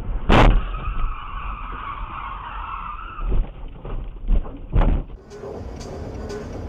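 A loud crash-like bang about half a second in, followed by car tyres squealing for a couple of seconds, then several heavy thumps. Near the end, steady road noise.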